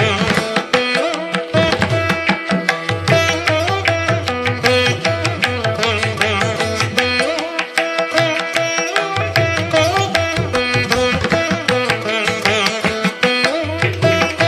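Instrumental background music in an Indian classical style: plucked strings over a steady drone, with a hand-drum rhythm.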